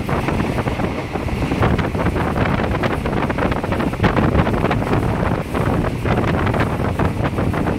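Wind rushing over the microphone at the open window of a moving passenger train, with the train's steady running rumble underneath.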